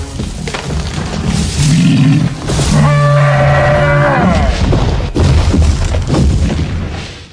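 Stegosaurus sound-effect calls: three deep calls in a row with a rumble beneath them, the middle one a long held tone. The last call fades out near the end.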